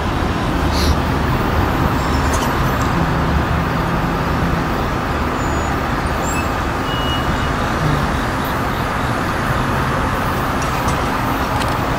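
Steady rumble of vehicle noise with a low hum, holding level throughout.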